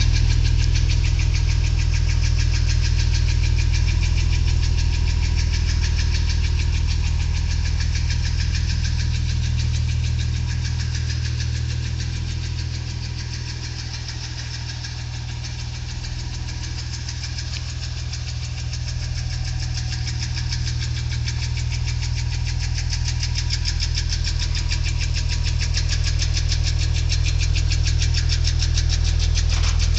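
Porsche Boxster 986 flat-six engine running steadily with a fast, continuous ticking knock. The owner suspects piston slap against the cylinder head at top dead centre, or worn hydraulic valve lifters. The sound fades somewhat for a few seconds in the middle, then comes back.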